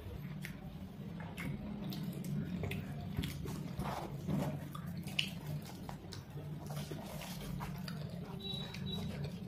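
Close-miked eating sounds: chewing, smacking and scattered mouth clicks as puri dipped in shahi paneer gravy is eaten, with the soft crackle of fried puris being torn. A steady low hum runs underneath.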